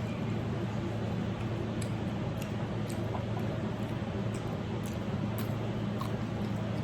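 Steady low hum with faint, scattered small clicks and squishes of people chewing chicken wings.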